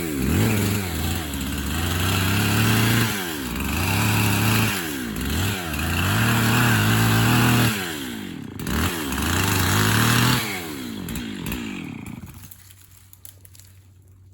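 Chainsaw running hard, its engine note sagging and climbing back again and again as it works through cuts. About twelve seconds in it drops away to a faint low hum.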